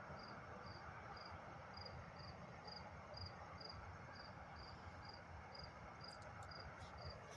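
An insect chirping faintly: short, evenly spaced chirps of one high pitch, a little over two a second, over faint background noise.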